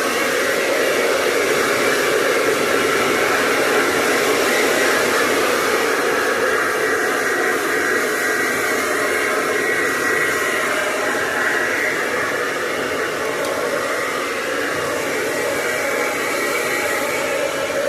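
Conair hair dryer running steadily with its concentrator nozzle attached, a constant rush of blown air with a faint high whine.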